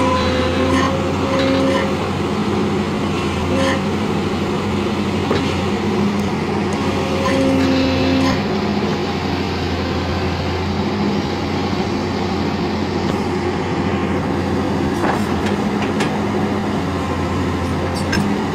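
Daewoo crawler excavator's diesel engine running steadily under load, with short higher tones coming and going and a few sharp knocks.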